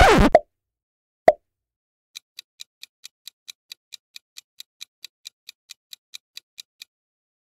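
Quiz-show sound effects: the tail of a short sliding-pitch transition effect, then a single loud pop as an answer label appears about a second in. After that a countdown timer ticks evenly, about four to five ticks a second, and stops about a second before the end.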